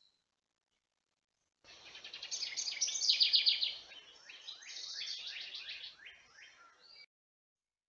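A songbird singing a run of rapid trilled notes, then a series of quick downward-slurred notes. It starts suddenly about a second and a half in and cuts off abruptly near the end.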